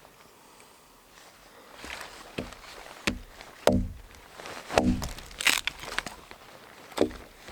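About half a dozen irregular hollow knocks and thuds, with rustling and crunching handling noises between them.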